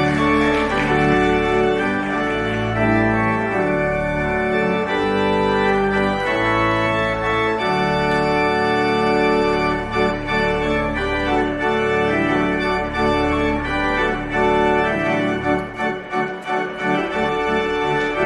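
Organ music: slow, full held chords that change every second or two.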